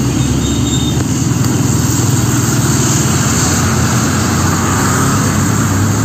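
Mitsubishi Fuso cargo truck driving past close by: a loud, steady diesel engine drone with a low hum over tyre and road noise.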